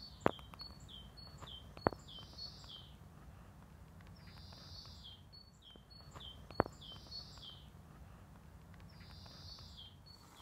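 A songbird singing outdoors, the same high, stepwise-falling phrase three times, about every four seconds, over a faint steady background. Three sharp clicks stand out between the phrases.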